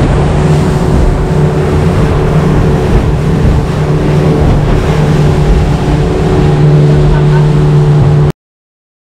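Motorboat engine running steadily at speed, with a constant rush of wind and water; it cuts off abruptly about eight seconds in.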